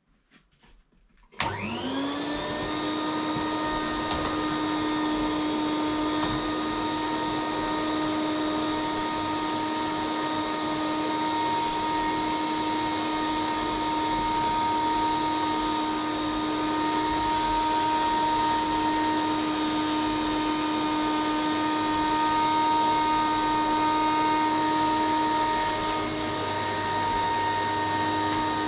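Vacuum cleaner switched on about a second and a half in: its motor whine rises as it spins up, then it runs steadily with a whine over a rushing noise.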